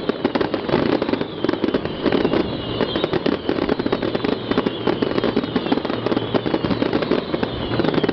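Harbour fireworks display: a continuous, rapid crackling and popping of many small bursts, with a high falling whistle now and then.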